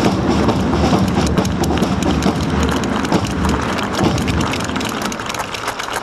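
Large cloth supporters' flags flapping and snapping close by, a dense run of rapid fabric cracks, with wind buffeting the microphone as a low rumble.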